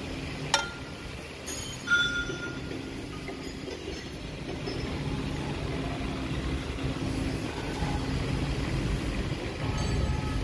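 Steady low rumble of running workshop machinery with a faint hum. About half a second and two seconds in come two sharp metallic clinks with a brief ring, as the machined steel gear shaft is picked up and handled against the machine.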